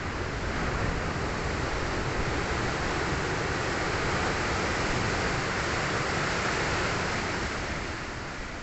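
Ocean surf breaking and washing up the shore: a broad rushing that swells about a second in and eases off near the end.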